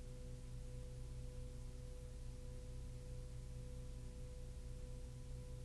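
Faint steady electrical hum over a constant hiss, with no other sound. This is the audio track's noise floor.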